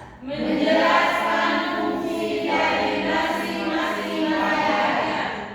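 A class of children's voices reciting aloud in unison, a dense group chant.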